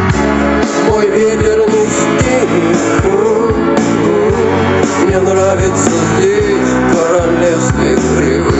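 Rock music playing: guitar and a wavering lead melody over a steady drum beat, with no sung words.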